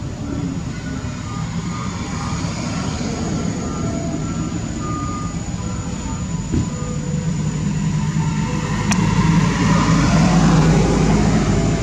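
A motor vehicle's engine running with a steady low hum that grows louder about eight seconds in, with a thin steady high whine above it.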